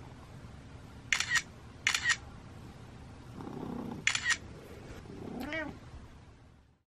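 A domestic cat meows once, a short call rising and falling in pitch, about five and a half seconds in. Before it come three short, sharp, high squeaks.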